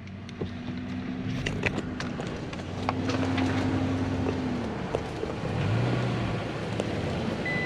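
Toyota Tacoma pickup's engine pulling under load through mud, its note rising and falling as the throttle changes, with scattered knocks and rattles from the truck on the rough trail. A short electronic beep sounds near the end.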